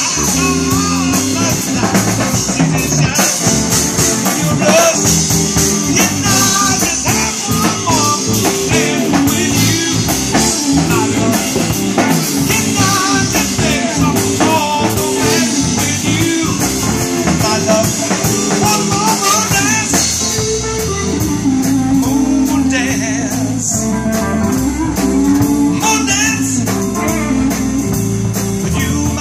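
Live band playing a bluesy rock number: keyboard, electric guitar, bass guitar and drum kit, with a steady beat.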